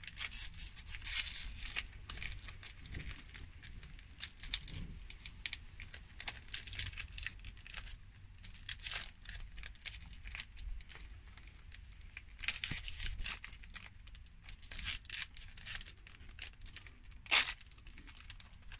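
Shiny foil wrapper being picked at, crinkled and torn open by hand, in irregular crackles with a short busier spell about two-thirds of the way through and one sharp loud rip near the end.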